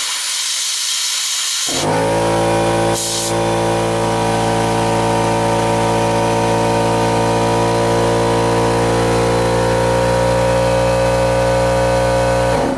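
A short blast of air hisses at the start. About two seconds in, a loud, steady hum with many overtones starts from a generator and runs until it cuts off just before the end, with another brief hiss of air at about three seconds.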